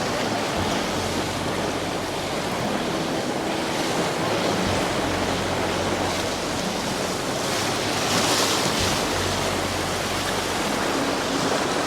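Ocean surf washing steadily onto a beach, with a wave breaking a little louder about eight seconds in.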